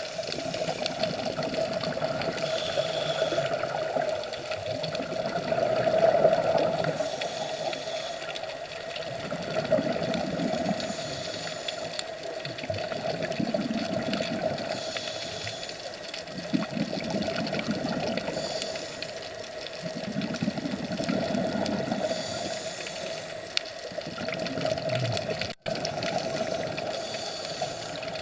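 Underwater sound heard through a camera's waterproof housing: a steady hum with bubbling and hissing surges every three to four seconds, the rhythm of a scuba diver breathing through a regulator.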